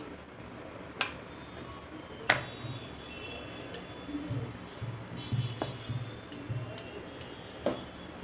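A rolling pin rolling out a sheet of stiff dough on a wooden chopping board: a low rolling rumble in repeated strokes, with a few sharp knocks of the pin on the board, the loudest about two seconds in.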